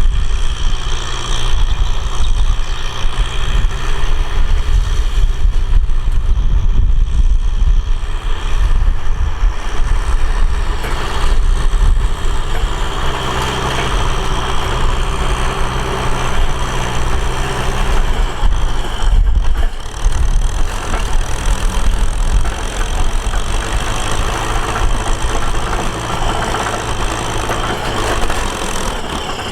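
Tractor engine running steadily with a deep low drone, dipping briefly about two-thirds of the way through.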